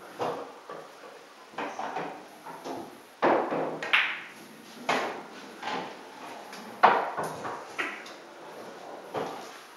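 Pool balls in play during a straight pool shot: the cue tip striking the cue ball, balls clacking together and an object ball dropping into a pocket. Around them is a run of further knocks as the player moves around the table, about a dozen sharp sounds in all, the loudest about seven seconds in.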